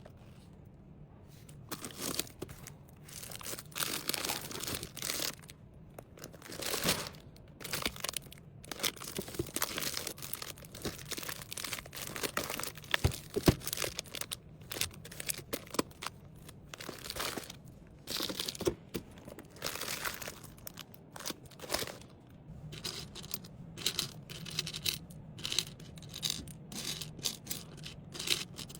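Packaging crinkling and rustling in irregular bursts, with a few small clicks, as items are handled and packed.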